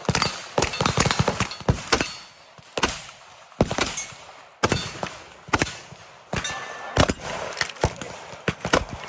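Gunfire from several guns on a firing line: many single shots at an irregular pace, some in quick strings and pairs, with short lulls between.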